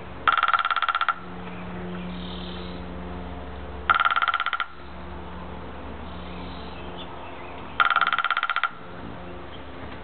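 Downy woodpecker drumming on a hollow, dead timber bamboo stalk: three short drum rolls of rapid, even strokes, each under a second long and about four seconds apart. The bamboo rings with a bell-like tone under the strokes.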